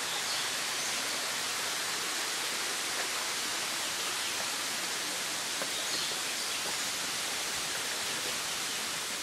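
Steady, even hiss of background noise with a few faint ticks.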